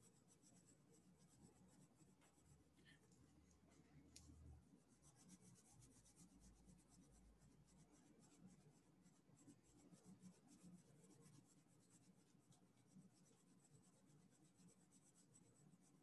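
Faint scratching of a Prismacolor colored pencil shading on paper in many short, quick strokes.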